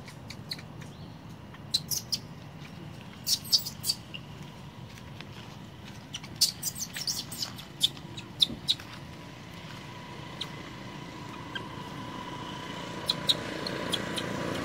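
Brief, high-pitched animal chirps in short clusters of a few at a time, over a steady background hiss. Toward the end a faint steady hum and a low rumble grow louder.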